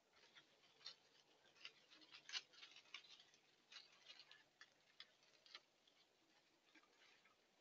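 Raccoons foraging in leafy garden plants: faint, irregular clicks and crackles, loudest a little over two seconds in.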